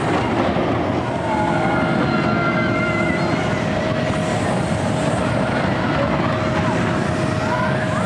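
Zierer Force Two steel roller coaster train running along its track: a steady rumble of wheels on steel rail, with a thin steady whine.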